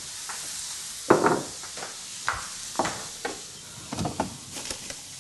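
Salmon skewers in a soy glaze sizzling in a hot pan with a steady soft hiss, over a run of sharp knocks and clunks as a refrigerator door is opened and things are moved about, the loudest knock about a second in.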